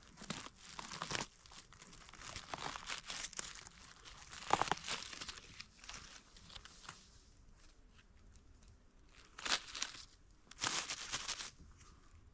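Dry fallen leaves crackling and rustling in irregular bursts as a hand digs into the leaf litter and pulls up a porcino mushroom, close to the microphone.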